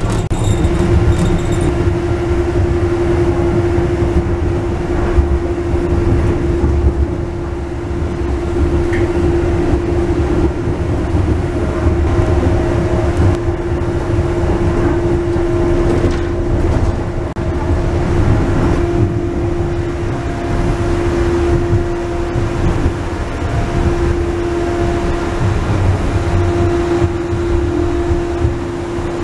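Wuppertal Schwebebahn suspension railway car running along its overhead rail, heard from inside the driver's cab: a steady low rumble with a constant hum over it.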